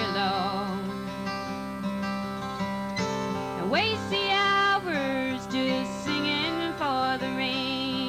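A woman singing a folk-country song to her own strummed acoustic guitar, holding long wavering notes and sliding between them.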